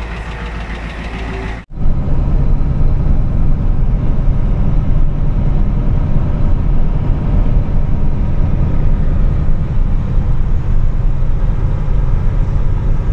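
An engine running for under two seconds, cut off abruptly. Then a steady low rumble of engine and tyres heard inside a vehicle's cab cruising at highway speed.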